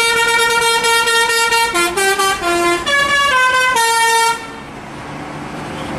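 Indonesian 'telolet' bus horn, a multi-tone musical air horn. It holds one note for nearly two seconds, then plays a quick tune of short notes at changing pitches and stops about four and a half seconds in, leaving a steady hiss of engine and traffic noise.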